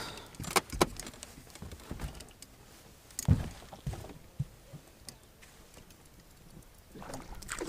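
Scattered light knocks and clicks of gear being handled in a small fishing boat, the sharpest about a second in and again just past three seconds.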